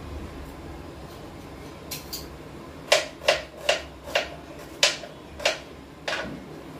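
Kitchen knife chopping an onion on a plastic cutting board: a few faint taps, then about six sharp knocks, roughly two a second, starting about three seconds in.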